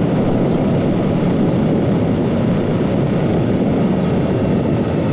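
Yamaha XSR 900's three-cylinder engine running at a steady cruise as heard riding onboard, an even rumble without revving or gear changes.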